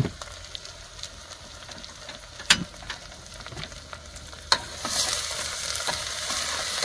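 Chicken frying in a pan, with sharp clinks of a stirring spoon against the pan; the sizzle swells louder about five seconds in.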